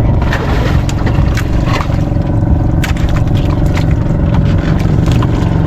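Small fishing boat's engine running steadily at a low, even speed, with a few short clicks or knocks over it.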